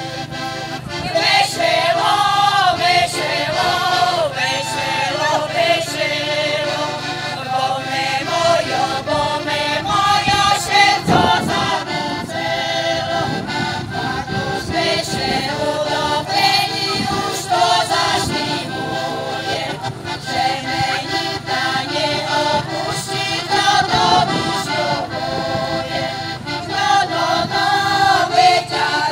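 Women's folk singing group singing a folk song together, accompanied by an accordion.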